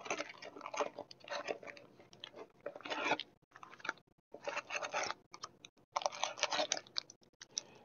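Crinkling and rustling of plastic and foil packaging as booster packs and accessories are lifted out of a trading-card Elite Trainer Box. The crinkling comes in bursts with a few brief pauses.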